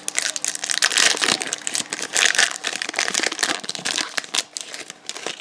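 A trading card pack's wrapper crinkling and crackling as it is handled and torn open. The dense crackle stops abruptly at the end.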